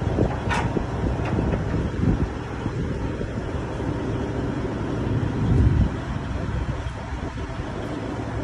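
Wind buffeting the microphone in gusts, a heavy, uneven low rumble that surges hardest about five and a half seconds in.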